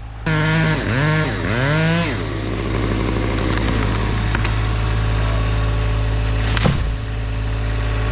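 Small engine idling steadily, with an engine revving up and down several times in the first two seconds and a sharp knock near the end.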